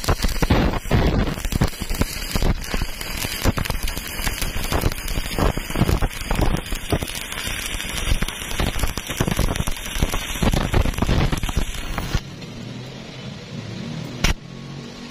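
Stick (shielded metal arc) welding arc crackling and spitting steadily as a coated electrode runs a fillet bead joining a round steel tube to a steel plate. The arc breaks off about twelve seconds in, leaving a quieter steady hum and one sharp click near the end.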